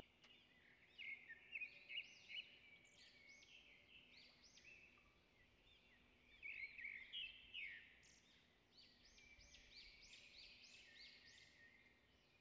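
Faint bird chirping in the background: short rising-and-falling chirps in bouts, busiest about a second in, around six to eight seconds in, and again near the end.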